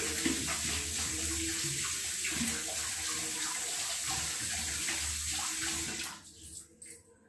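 Water running from a tap into a sink, a steady splashing that shuts off about six seconds in.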